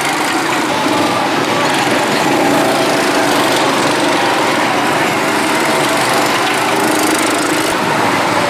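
Several go-kart engines running together, a steady small-engine buzz as the karts drive around the track.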